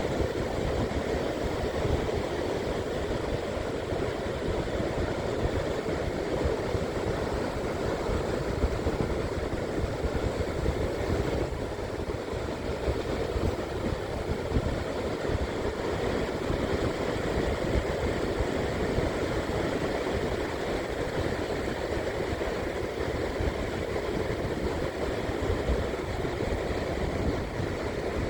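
Steady roar of rough ocean surf under a stormy wind, with wind rumbling on the microphone.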